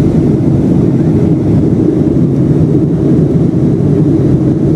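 Loud, steady engine and airflow noise heard inside the cabin of a Boeing 757-200 airliner during its landing.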